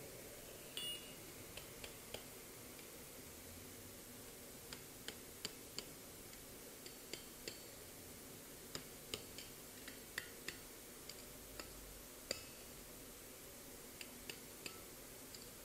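Light hammer taps on a hot mild-steel spiral lying on the anvil face, flattening the coil: short, metallic clicks with a brief ring, irregular, roughly one or two a second, over a faint hiss.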